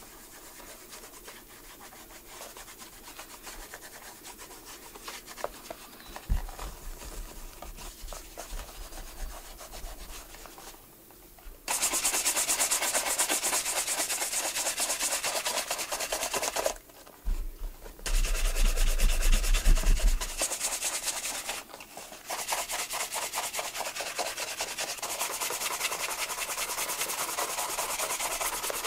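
Sanding of a leather shoe sole. Light rubbing for the first ten seconds, then three loud stretches of sanding, each several seconds long, with short pauses between them.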